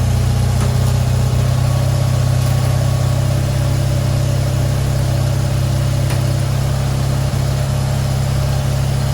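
1970 Fiat 500's small air-cooled two-cylinder engine idling steadily at an even pitch.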